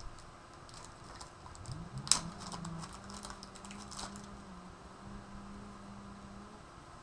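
Light clicks and rustles of craft supplies being handled on a table, with one sharper click about two seconds in. A faint steady low hum runs under the middle.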